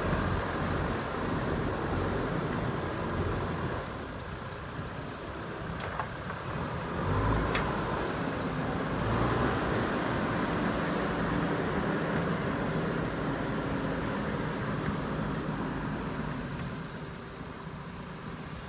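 JCB backhoe loader's diesel engine running under working load, getting louder for a few seconds about seven seconds in and easing off near the end.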